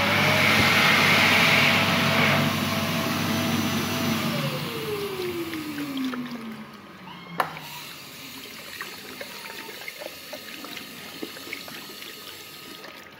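Airstream Vitesse hand dryer blowing loudly, cutting off about two seconds in, its motor whine falling steadily in pitch as it spins down over the next few seconds. Under it, a push-top tap runs water into a ceramic basin over rinsing hands, with a sharp click about seven seconds in.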